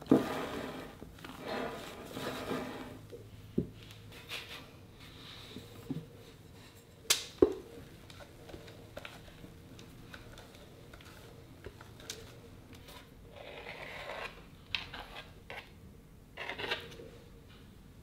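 A spatula scraping and folding thick chocolate sponge batter in a mixing bowl, with two sharp knocks about seven seconds in. Later come softer scrapes as the batter is spread across a metal sheet pan with an offset spatula.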